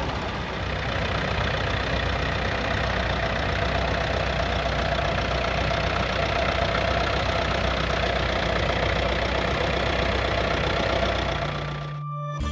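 Vintage tractor engine running steadily. Near the end it cuts off abruptly as music starts.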